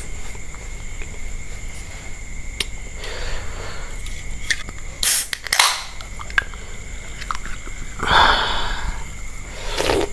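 A few irregular scrapes and rustles of handling, over a steady drone of insects.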